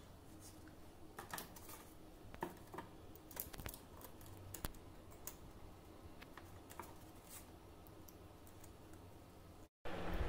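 Faint, irregular small clicks and taps of a smartphone's circuit board and plastic frame being handled and pressed together. Near the end the sound drops out for a moment and a steady hiss takes over.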